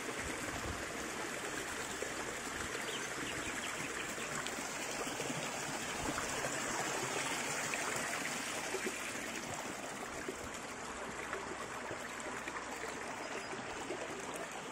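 Shallow creek water running and trickling over rock slabs: a steady, even rush of flowing water.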